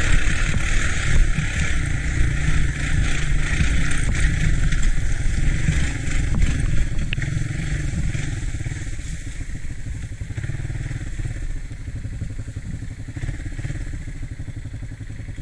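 An ATC three-wheeler's engine running while it is ridden, with a steady rushing noise over it. The sound gradually gets quieter over the second half.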